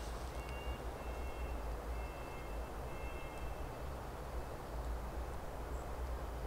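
Outdoor ambience: a low, steady rumble with a few faint, thin, high whistles in the first few seconds.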